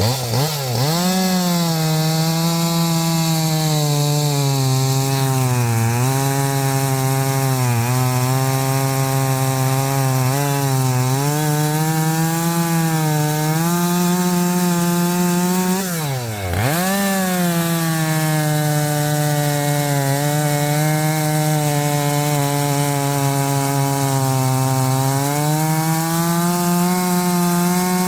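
Husqvarna 545 50cc two-stroke chainsaw running at high revs while cutting through a log with a used, slightly dull chain; its pitch sags under the load of the cut and recovers again and again. About halfway through, the revs drop sharply and climb straight back up.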